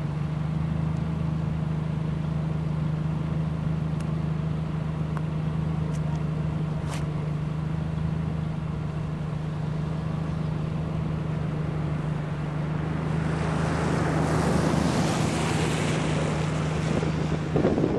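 Steady low hum of an idling vehicle engine, with a swell of rushing noise that builds about two-thirds of the way through and fades near the end.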